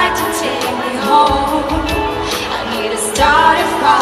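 A live pop ballad: a female lead vocal over band accompaniment, with sung phrases that slide up in pitch at the start and again about three seconds in.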